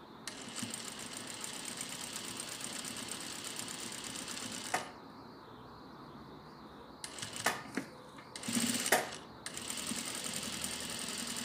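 Industrial single-needle lockstitch sewing machine running at a steady speed, topstitching close to the edge of a fabric mask. It stops a little under five seconds in, followed by a few clicks and a short noisy burst, then starts stitching again near the end.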